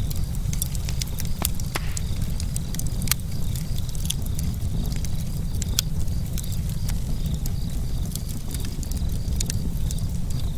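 Campfire crackling: frequent irregular snaps and pops from burning wood over a steady low rumble.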